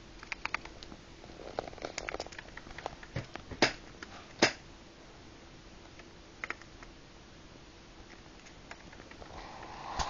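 Small scattered clicks and taps of a budgie moving about on paper and a desk, with two sharper taps about three and a half and four and a half seconds in, over a faint steady hum.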